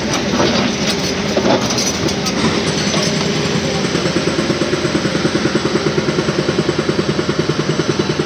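Heavy diesel engine running, with a few clattering knocks in the first three seconds. From about four seconds in the engine settles into an even pulsing beat of several pulses a second.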